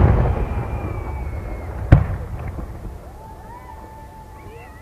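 Aerial fireworks shells bursting overhead. The rumbling tail of a big boom dies away, then a single sharp bang comes about two seconds in and rumbles off.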